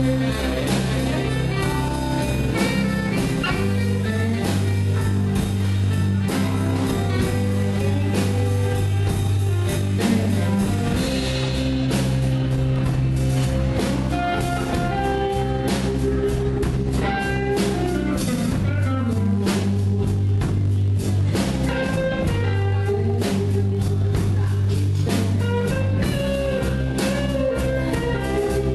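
Live blues band playing an instrumental passage: guitar over bass and drums with a steady beat.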